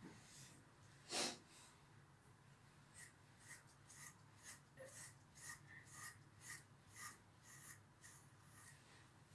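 A brush stroking through a long-haired dog's coat: short scratchy strokes, about two a second, from about three seconds in. A single louder rustle about a second in.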